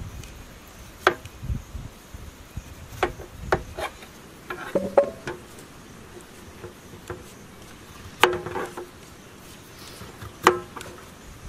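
Several sharp knocks and clacks of raw potatoes being handled and cut, spaced irregularly, over a steady chirping of insects.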